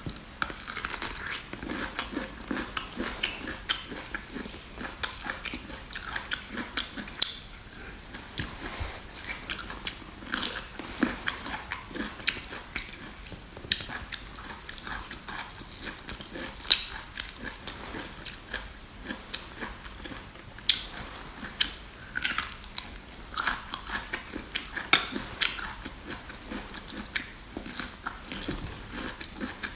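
Close-miked eating: biting and chewing food, a steady run of sharp wet clicks and smacks several times a second.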